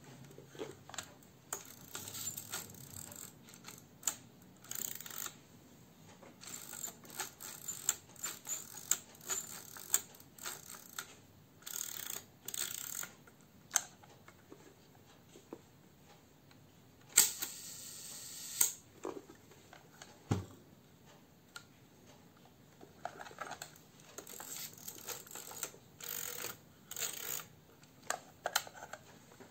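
Film-advance crank of a Mamiya C33 twin-lens reflex camera being wound, making runs of small sharp mechanical clicks and ratcheting, with a denser stretch of about one and a half seconds a little past the middle.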